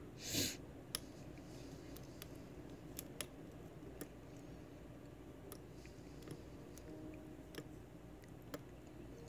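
Faint, sparse clicks of a hook pick lifting the pin tumblers of a 5-pin padlock held under tension, single-pin picking. A brief hiss about half a second in is the loudest sound.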